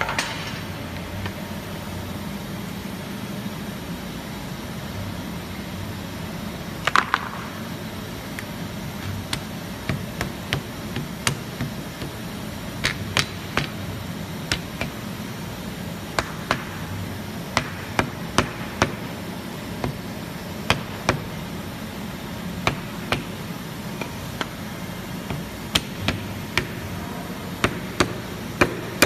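Sharp knocks at uneven intervals, coming often from about nine seconds on, as bent steel rule blades are knocked into the slots of a laser-cut plywood die board. One louder knock with a brief metallic ring about seven seconds in, over a steady low hum.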